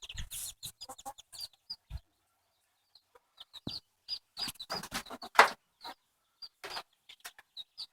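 Silkie chicks peeping in many short, high calls, with a few lower clucks from the hens in the first couple of seconds and one brief louder noise about five seconds in.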